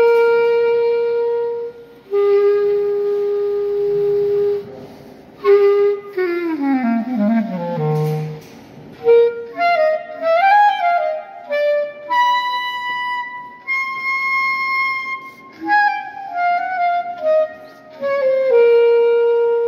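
Solo clarinet played unaccompanied: long held notes with short pauses, then a fast run sliding down to a very low note, a wavering rising phrase and high held notes, and a falling line that settles on a long held note near the end.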